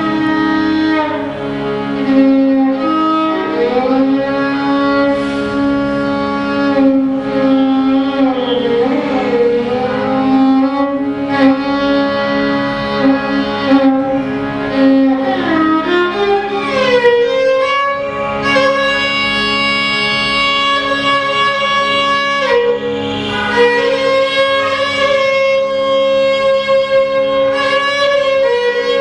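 Violin playing a slow raga melody in Indian style, with long gliding slides between held notes, over a steady low drone.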